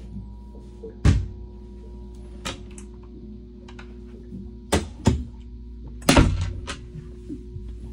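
A handful of sharp knocks and clunks from interior and closet doors being handled, the loudest about a second in and around six seconds in, over steady background music.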